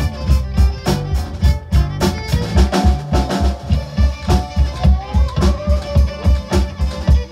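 Fiddle, electric bass and drum kit playing a fast reel together, with a steady, driving drum beat under the fiddle melody. About five seconds in the fiddle slides up to a higher note.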